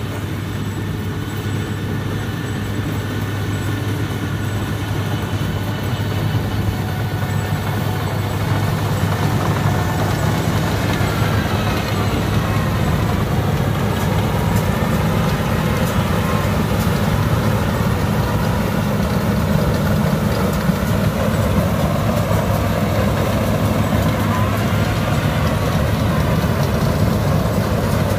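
Yanmar AW82V combine harvester's diesel engine running steadily as the machine works the rice field, with a deep hum that grows gradually louder.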